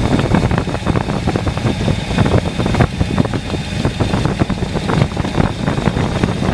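The Mercedes 450SL's V8 engine running steadily.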